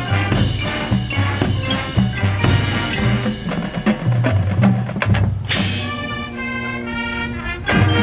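High school marching band and pit percussion playing a field show: a driving percussion rhythm over low bass notes, then a crash about five and a half seconds in and a couple of seconds of held chords before the rhythm starts again near the end.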